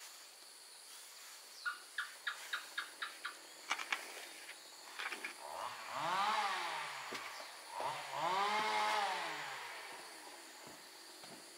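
A quick run of about eight sharp taps, then a chainsaw revved up and back down twice, its pitch rising and falling each time.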